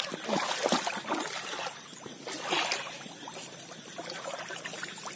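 Shallow running water trickling and sloshing, with irregular small splashes and knocks close by.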